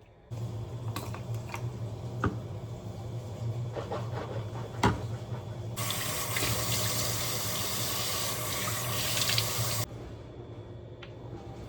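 Water running from a tap into a sink, with a few sharp clinks. About six seconds in the flow gets much stronger, then cuts off suddenly about four seconds later.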